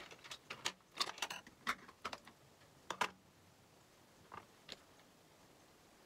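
Irregular small clicks and taps of makeup items being handled, closely spaced in the first three seconds, then two more about four and a half seconds in.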